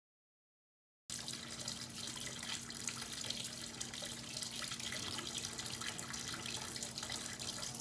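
Steady rushing of running water, starting abruptly about a second in, with a faint low hum underneath.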